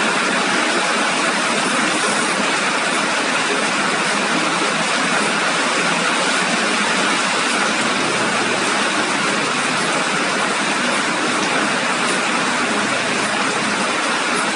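Rain falling steadily, a dense even hiss with no breaks.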